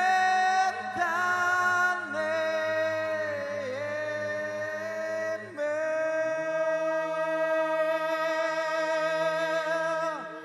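Film score: a solo voice singing long held notes with vibrato over a low sustained drone, changing note a few times and falling away near the end.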